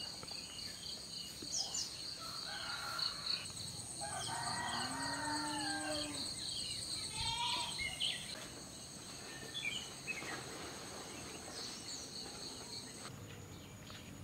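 A rooster crows a few seconds in over a steady high-pitched insect chorus and scattered bird chirps. The insect chorus cuts off near the end.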